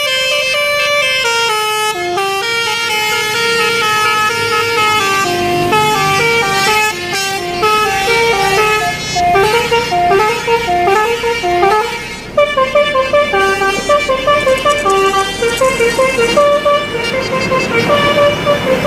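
Telolet basuri melodic bus horn playing a fast tune of short stepping horn notes. The tune dips briefly about twelve seconds in, then goes on with a new, more pulsing phrase.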